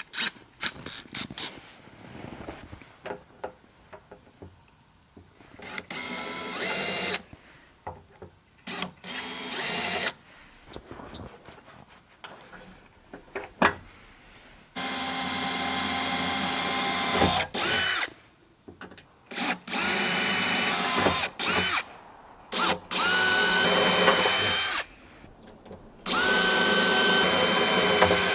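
Cordless drill boring into the steel wall of a shipping container, run in about six separate bursts of one to three seconds. At the start of the later bursts the motor's whine rises in pitch as it spins up.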